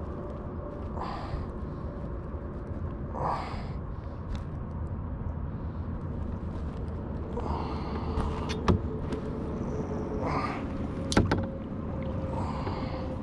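Handling noise from unhooking a small largemouth bass in a kayak: a steady low rumble, several short rustles, and two sharp knocks in the second half.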